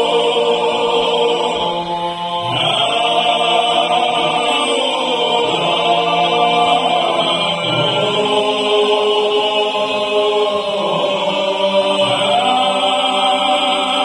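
Male vocal ensemble singing Georgian polyphonic folk song a cappella: long sustained chords over a steady low bass drone. The upper voices move to a new chord three times.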